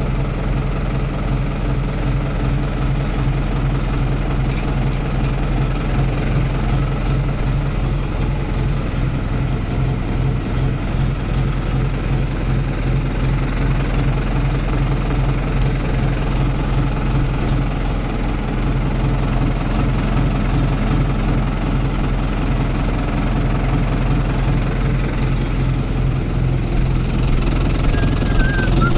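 Fiat 70-66 tractor's four-cylinder diesel engine running at a steady working speed under load, heard from inside the cab while it drives a hay mower.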